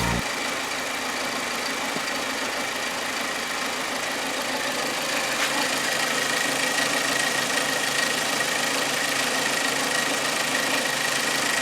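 Hyundai Accent 1.6 four-cylinder engine idling steadily, its hydraulic valve lifters freshly flushed to cure a lifter knock, with a thin steady whine over the even running. To the owner it seems to just whisper.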